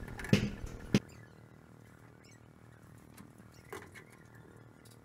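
A few sharp clicks and knocks from metal parts being handled in the first second. After that, the sound drops to low room tone with a few faint, scattered clicks from hands handling a part.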